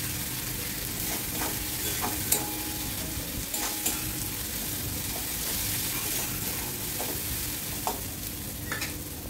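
Onion masala with ground turmeric, cumin, coriander and chilli frying in mustard oil in a metal kadai, sizzling steadily while a spatula stirs it, with scattered clicks and scrapes of the spatula against the pan. It is the stage of sautéing the spice paste.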